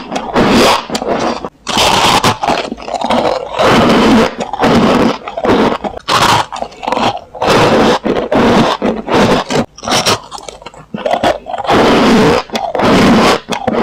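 Soft freezer frost being bitten and chewed close to the microphone: a run of soft crunches one after another.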